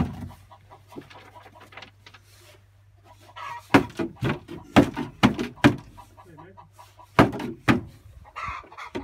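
Chickens clucking, with a run of loud, sharp knocks starting about three and a half seconds in and two more a little after seven seconds.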